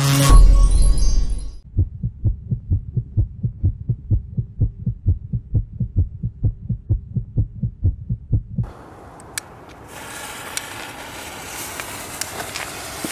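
An intro jingle ends, followed by a produced pulsing bass beat, about four beats a second, that stops about nine seconds in. A firework fuse then hisses steadily with scattered crackles as it sprays sparks.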